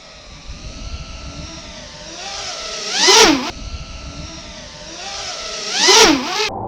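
FPV racing quadcopter's motors and propellers whining in two fast low fly-bys about three seconds apart: each time the pitch climbs as it closes in, then drops sharply as it passes, loudest at the pass. The sound cuts off suddenly near the end.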